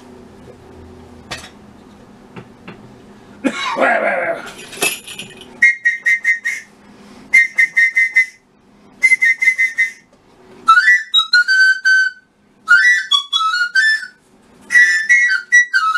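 High whistling in short bursts of rapid trills, then warbling whistled phrases that swoop up and down, starting about six seconds in and coming in several separate bursts; a brief falling sound comes before it, about four seconds in.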